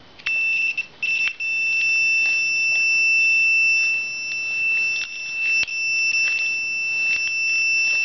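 Digital multimeter's continuity beeper: a steady high beep that cuts in and out in short bursts for the first second or so, then holds almost without a break, showing a closed circuit across the ignition switch terminals that comes and goes at first. A few faint clicks from the probes on the terminals.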